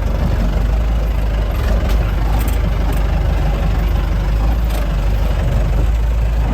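Off-road 4x4 engine running steadily at low revs as the vehicle crawls slowly up a rocky track, with a few faint knocks.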